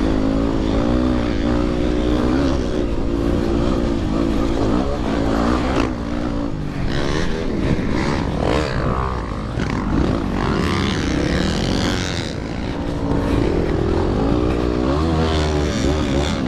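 Yamaha WR250R's single-cylinder four-stroke engine racing on a dirt bike, its pitch rising and falling with throttle and gear changes.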